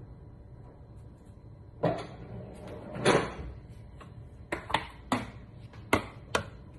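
Kitchen handling sounds: a series of sharp knocks and clatters as containers and a plastic plate are picked up and set down on the counter and glass cooktop. The loudest comes about three seconds in, with a quicker run of knocks in the second half.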